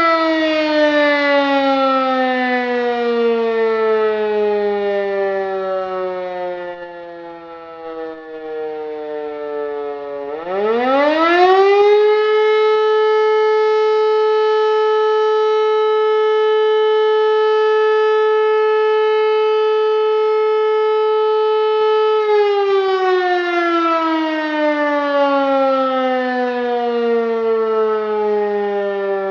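E57 electromechanical motor siren sounding the fire-brigade alarm signal. Its tone sinks slowly as the rotor runs down in a pause. About ten seconds in it winds up quickly to a steady high wail, holds it for about ten seconds, then runs down again with falling pitch.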